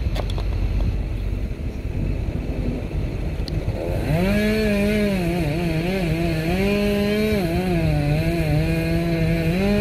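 An engine starts up about four seconds in and runs at high revs, its pitch wavering up and down, over a steady low rumble. A couple of light clicks come before it.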